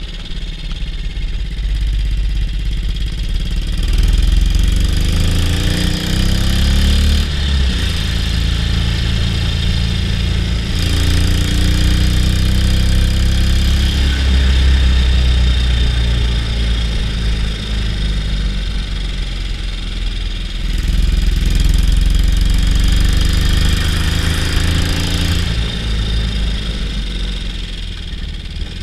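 BSA C15 Star 250's single-cylinder four-stroke engine running under way, heard from the saddle. Its note climbs as it accelerates, three times, about 4, 11 and 21 seconds in, with a drop at each gear change between.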